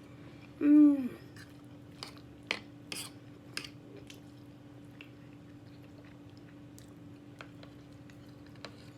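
Eating noises: a short, loud hummed vocal sound just under a second in, then wet mouth clicks and lip smacks of chewing pasta, a few close together and then sparser.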